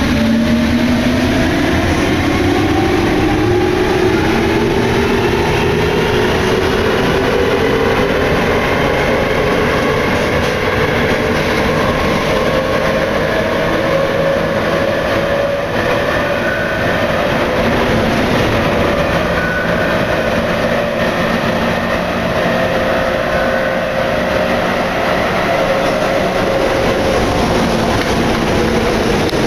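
Cabin sound of a Paris Métro MP89CA rubber-tyred train under way. The traction motors give a rising whine as it accelerates, then hold a fairly steady pitch that sinks slightly near the end, over steady running noise.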